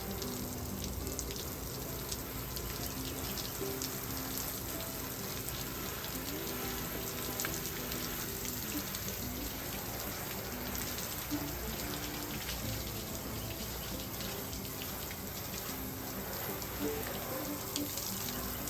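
Water spraying steadily from a hose, with a background music melody over it.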